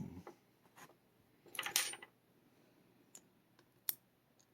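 Small metal parts of a Yale pin tumbler lock being handled: a few light clicks, a short metallic rattle about a second and a half in, and one sharp click near the end, as driver pins are worked out of the cylinder.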